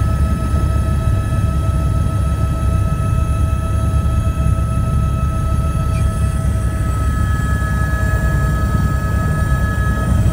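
Cabin sound of an Airbus AS350 single-turbine helicopter in flight: a steady heavy rumble from the rotor and airflow, with several thin steady whining tones from the turbine above it.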